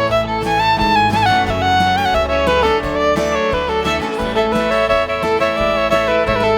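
Background music: an instrumental break in a country song, led by fiddle over guitar and bass with a steady beat.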